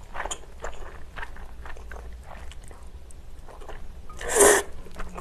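Close-miked wet chewing of chewy jjolmyeon noodles: many small smacks and clicks, with one louder rushing noise about four seconds in.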